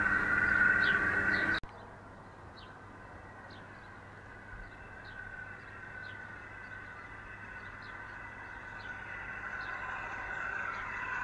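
Whine of a large-scale garden railway locomotive's electric drive, loud at first and cut off abruptly about a second and a half in. It then comes back faint and grows steadily louder as the train approaches.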